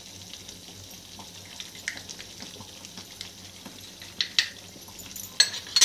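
Thick masala gravy simmering in a steel pot, with faint bubbling and popping, and a few sharp clicks in the last couple of seconds as chilli powder is spooned in.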